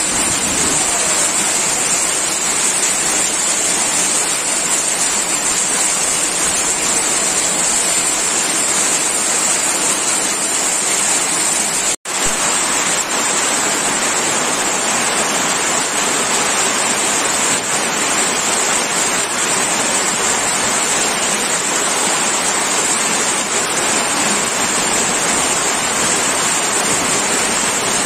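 Heavy downpour with hail, a loud, steady, dense hiss of rain. The sound cuts out for an instant about twelve seconds in.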